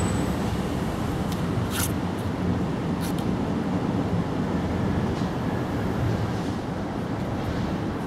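Steady low rumble of outdoor background noise, with a few brief high ticks near the start.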